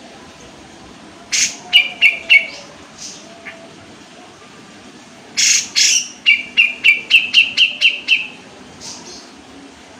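Sooty-headed bulbul singing in two bursts: about a second in, a harsh note followed by three sharp chirps, then about five seconds in two harsh notes and a fast run of about nine sharp chirps.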